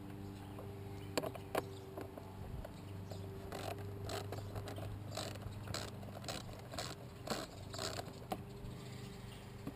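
Hand work on an engine's air cleaner assembly: two sharp clicks a little over a second in, then a run of short scraping, rattling strokes about twice a second, over a steady low hum.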